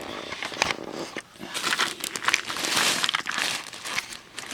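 Crinkling plastic packaging of vintage Fleer Phoney Phone candies being handled, an irregular run of crackles and clicks that is busiest in the middle.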